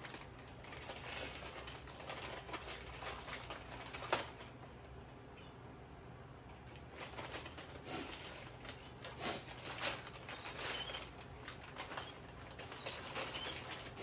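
Paper or thin cardboard packaging rustling and crinkling in the hands in irregular bursts, with one sharp click about four seconds in. A few faint high chirps from the caged birds come near the end.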